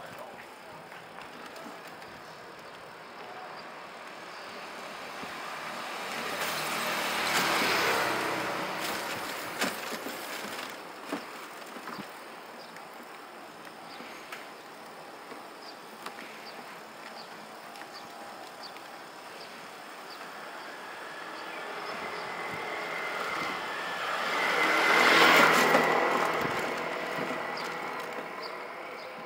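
Street traffic: two motor vehicles pass close by, each swelling and fading, one about a quarter of the way in and a louder one near the end, over a steady low street hum. A few light knocks come between them.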